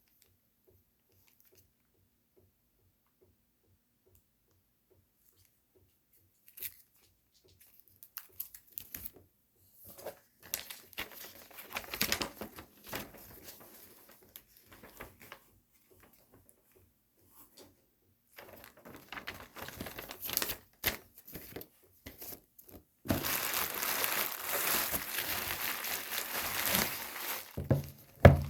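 Phone packaging being unwrapped: a few seconds of near silence, then scattered crinkling and tearing that grows denser and turns into continuous crinkling in the last few seconds, with a sharp knock near the end.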